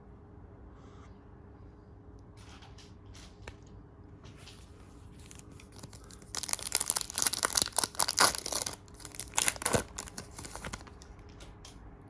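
A foil trading-card pack wrapper being torn open and crinkled by hand, in two loud spells of tearing and crackling after some quieter handling, the longer one about six seconds in.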